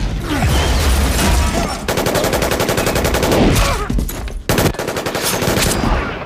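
Automatic rifle fire from a film action scene: rapid bursts of shots, densest about two to three and a half seconds in and again about five seconds in.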